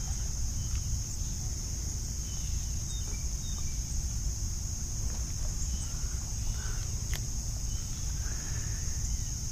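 Insect chorus in summer: a steady high-pitched drone over a constant low rumble, with a faint tick now and then.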